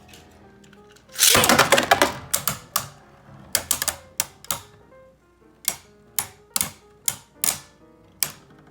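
Two Beyblade spinning tops launched into a plastic stadium, with a dense clatter about a second in, followed by sharp irregular clicks as the tops strike each other.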